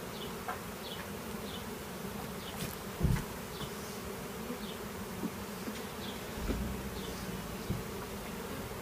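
Swarm of honey bees buzzing steadily as they fly around an open hive box, just after a package of bees was shaken in. A single dull knock about three seconds in, and a low rumble in the last couple of seconds.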